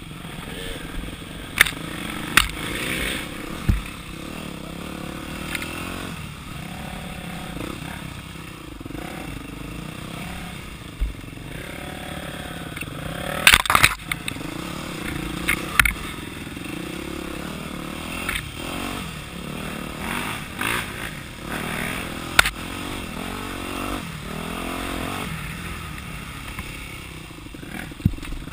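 Dirt bike engine running under varying throttle, its pitch rising and falling again and again over the trail. The bike clatters and knocks sharply over rough ground several times, loudest about halfway through.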